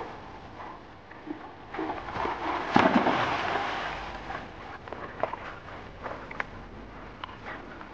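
Dogo Argentino plunging into a creek: a loud rush of splashing water that peaks about three seconds in, then fades to sloshing as the dog swims, with scattered small splashes and snaps.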